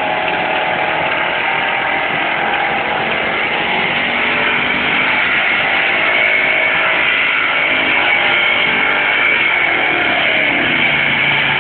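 Engine of a competition pulling vehicle running hard and steadily during a pull, with a sustained high whine that grows stronger in the second half.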